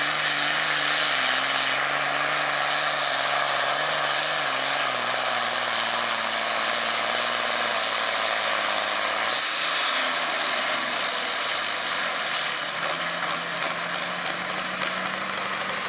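John Deere farm-stock diesel tractor pulling a weight-transfer sled under full load, its engine note dropping steadily in pitch over the first nine seconds as it lugs down under the sled. About ten seconds in the sound changes, and a steadier engine tone holds near the end.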